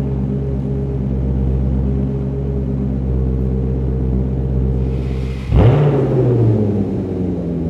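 Maserati Quattroporte's 4.2-litre V8 idling steadily through a Tubi Style sports exhaust, with a deep, even idle note in an underground car park. About five and a half seconds in it is blipped once, the pitch jumping up and falling back to idle over about a second.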